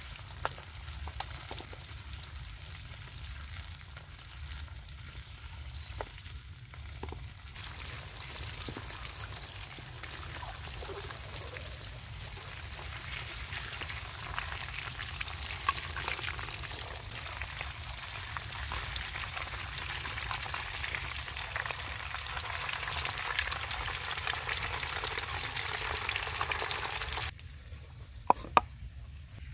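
Hot oil sizzling in a steel wok over a wood fire as whole round pieces of food deep-fry, stirred now and then with a ladle. The sizzle grows louder through the middle and cuts off suddenly near the end, and a few sharp clicks follow.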